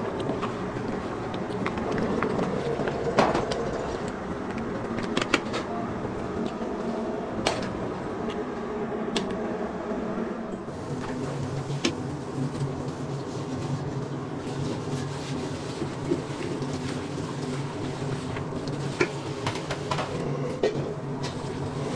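Busy restaurant kitchen noise: a steady rush under a few sharp metal clanks of ladle and pans, with a low hum coming in about halfway.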